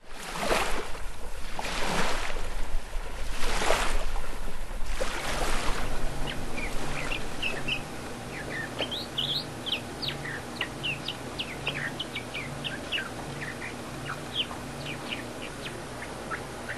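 Birds chirping, with many short, high calls from about six seconds in. Before that come four swelling rushes of noise, each lasting under a second.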